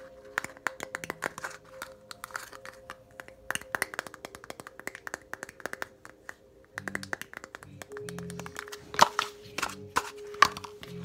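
Quick, irregular tapping on hard objects, many sharp taps in a row, a few louder ones near the end, over quiet background music with held notes.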